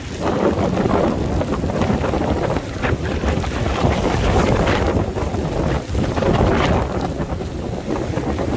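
Strong gusting wind buffeting the phone's microphone with a loud, uneven rumble, over heavy rain in a rainstorm.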